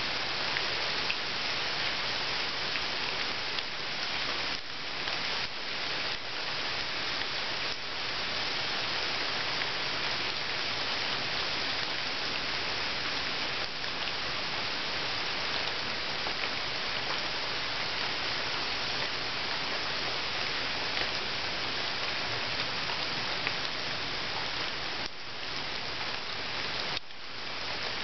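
Steady rain falling into a puddle: an even, dense hiss of drops that dips briefly a few times.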